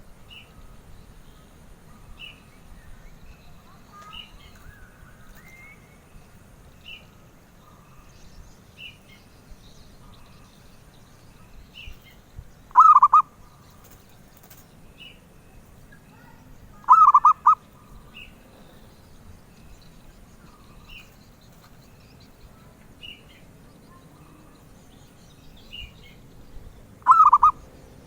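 Zebra dove (perkutut) cooing: three short, loud, pulsed coos, the first about halfway in and the last near the end. Faint high chirps repeat every couple of seconds between them.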